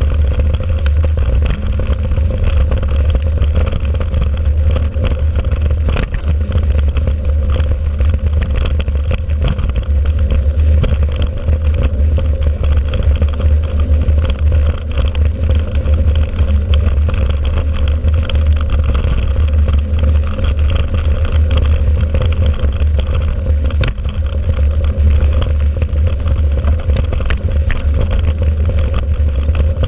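Wind buffeting the microphone of a bike-mounted camera as a mountain bike rolls steadily along a dirt track, a heavy continuous rumble. Under it are the tyres crunching on the dirt and small rattles of the bike over bumps.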